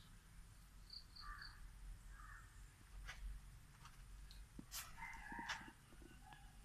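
Rooster crowing faintly about five seconds in, with a few short high bird chirps about a second in and some light clicks.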